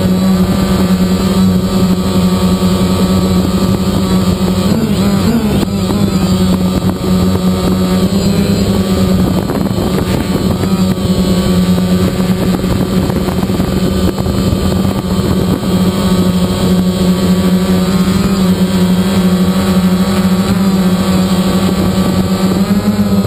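DJI Phantom quadcopter's motors and propellers running in a steady hover, heard close up from the GoPro riding on the drone. The hum's pitch wavers briefly a few times as the throttle shifts.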